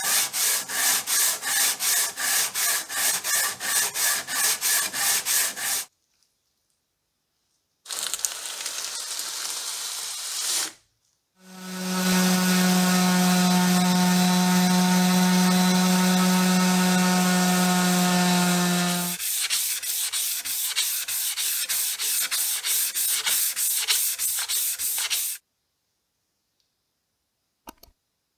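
Hand sanding a steel cleaver blade with a sanding block: even back-and-forth strokes, roughly two to three a second. About twelve seconds in, an electric orbital sander runs on the blade for several seconds with a steady humming whine, then the hand strokes resume before the sound stops.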